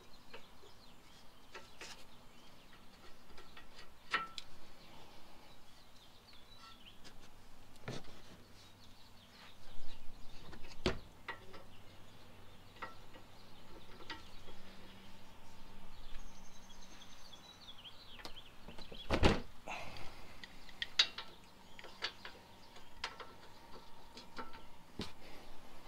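A ratchet wrench tightening the brake caliper bracket bolts on a car's front hub: scattered clicks and metal knocks, with one louder clank a little before halfway and another about three-quarters through.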